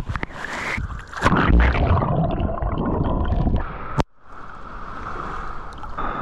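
Water splashing and gurgling as a person swims, irregular and loud, with a big splash about a second and a half in. About four seconds in it cuts off abruptly and gives way to steady, even background noise.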